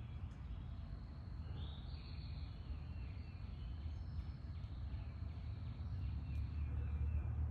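Backyard outdoor ambience: a few faint bird chirps and a steady high whine over a constant low rumble.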